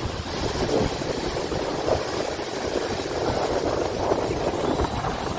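Strong wind buffeting the microphone in gusts, mixed with the rush of Lake Michigan surf breaking on the beach.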